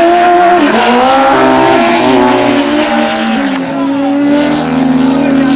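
Two drag-racing motorcycles, a Kawasaki KZ1000 and a ZX10, accelerating hard side by side down the strip, their engine notes climbing and dropping back with each gear shift.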